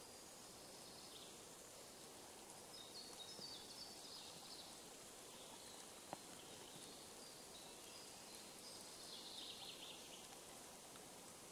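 Near silence: faint forest ambience with faint high chirping from distant birds, a few seconds in and again near the end, and one soft click midway.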